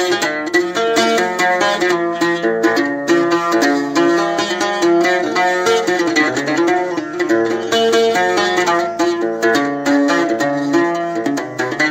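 Algerian mandole played solo with a plectrum: a fast, unbroken chaabi melody of quickly picked notes, an instrumental break between sung verses.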